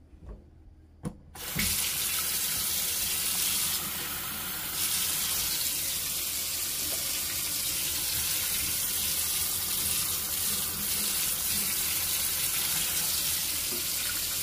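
Water running in a steady stream, being measured out and poured into a food processor bowl. It starts about a second and a half in, after a few light clicks.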